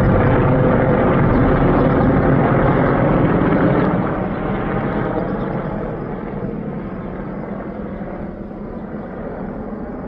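Two AH-64 Apache attack helicopters flying over, their rotors and engines making a steady low noise. The sound is loud at first and fades from about four seconds in as they fly away.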